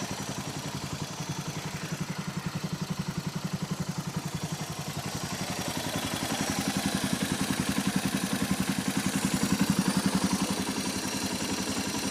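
Suzuki DR650SE's single-cylinder four-stroke engine idling with a rapid, even mechanical clatter, which the owner takes for cam chain noise. It grows a little louder about halfway through.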